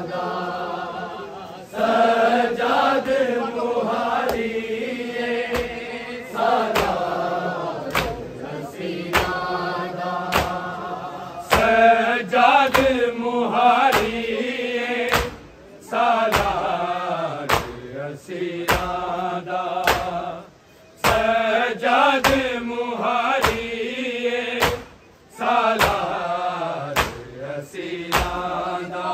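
Men's voices chanting a noha, a Shia Muharram lament, in long melodic lines with brief pauses between them. Sharp regular slaps keep the beat throughout: the chest-beating of matam.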